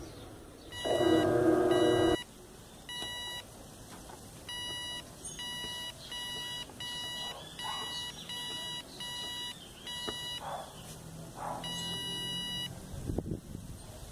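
Electronic beeping: about a dozen short beeps of the same pitch in an uneven rhythm. A louder, lower held tone sounds for about a second and a half near the start.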